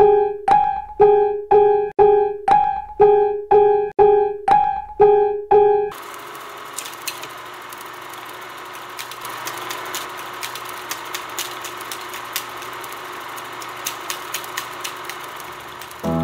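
A title jingle: one pitched note struck over and over, about twice a second, for roughly six seconds. A crackling hiss with scattered clicks follows until the end.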